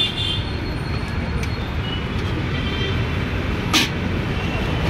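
Steady traffic rumble from a busy road, with one short, sharp click about three and a half seconds in.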